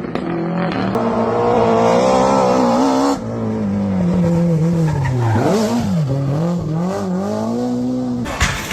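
Rally car engine at full throttle, its pitch climbing for about three seconds and then dropping sharply at an upshift, followed by quick rises and falls of the revs as the driver works the throttle.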